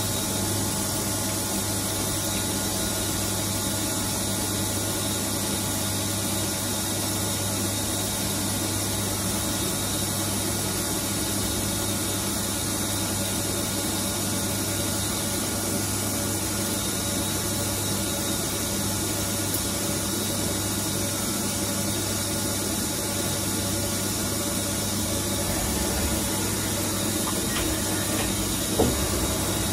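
CNC lathe running steadily while turning a steel part, a constant machine hum with several steady whine tones and cutting noise. A single sharp click comes near the end.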